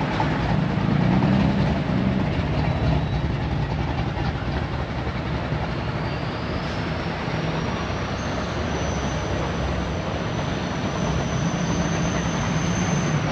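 Engines and road noise of cars cruising a street, steady and continuous, with a thin high whine that rises slowly through the second half and then stops.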